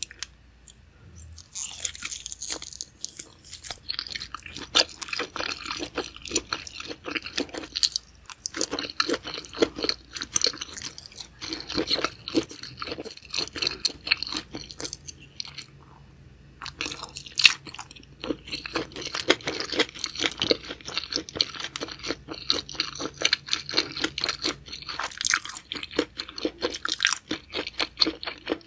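Close-miked chewing and biting of sauced grilled squid and octopus: dense, irregular crunching and clicking mouth sounds, starting about a second and a half in, with short pauses about eight and sixteen seconds in.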